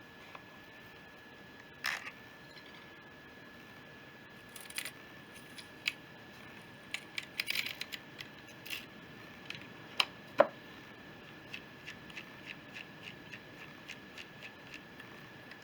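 Small metal carburettor parts clicking and tapping against each other as they are handled and fitted, with two sharper knocks about ten seconds in. Near the end comes a run of light, evenly spaced ticks, about two to three a second.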